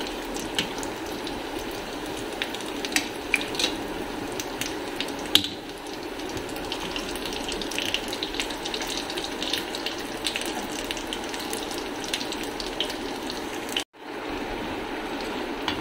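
Potato cutlets shallow-frying in oil in a non-stick frying pan: a steady sizzle with scattered small crackles and pops of spattering oil, and now and then a sharper tick. The sound breaks off for an instant near the end.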